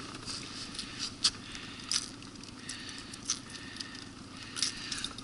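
Handling of a small caught taimen in the hands: scattered light clicks, taps and rustles over a steady low background noise.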